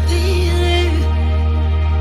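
Background music: a slow, soft piece with a held deep bass note under a wavering melody.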